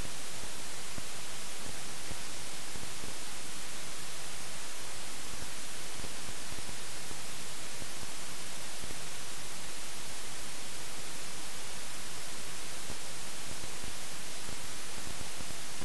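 Steady electronic static hiss and nothing else, from a helmet camera whose audio recording failed.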